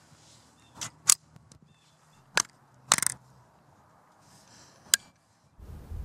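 Sharp clicks and taps of hands working the turret cap and the adjustment turret of a UTG rifle scope on an air rifle. There are single clicks about a second in and near the middle, and a quick run of clicks about three seconds in. A low steady rumble comes in near the end.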